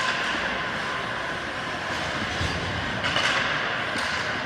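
Steady scraping rush of skate blades on ice during play.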